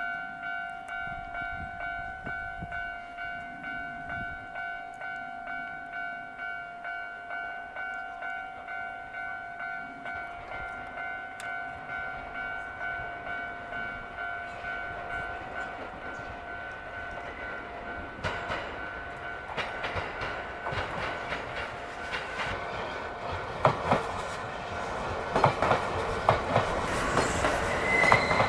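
Level-crossing alarm ringing in a steady repeating two-tone ding. From about 18 seconds in, a train nears and runs over the crossing, its wheels clacking over the rail joints, and a high wheel squeal sets in near the end.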